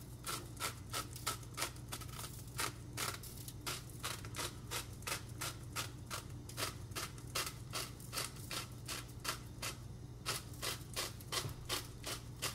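Hand-twisted herb grinder clicking in a steady rhythm, about three grinds a second, pausing briefly about ten seconds in.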